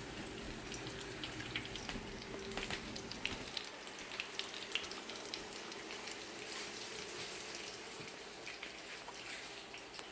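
Thin-sliced chicken cutlets sizzling and crackling steadily in a frying pan. A low hum underneath drops away about three and a half seconds in.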